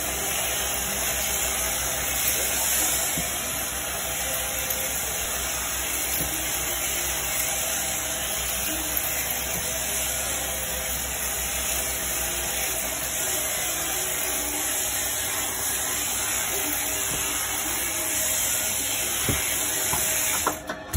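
Sheep-shearing handpiece on an overhead-driven shearing plant running steadily as its comb and cutter clip through the fleece: a constant mechanical hum with hiss. It cuts off suddenly near the end.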